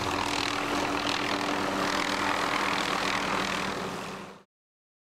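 MD 500 light helicopter in flight, its turbine engine and rotor running steadily with a low hum. The sound cuts off abruptly about four and a half seconds in.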